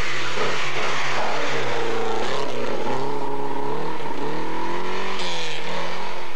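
Rally car engine revving hard, its pitch climbing and falling back twice.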